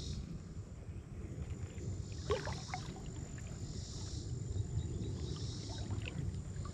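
Steady low rumble of moving river water and wind, with insects droning in short pulses every second or two and a few faint clicks about two seconds in.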